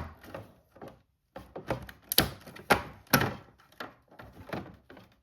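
Plastic toy-barn parts being handled and fitted together: a run of sharp knocks, taps and clicks, the loudest few about two to three seconds in. The sound drops out completely for a moment about a second in.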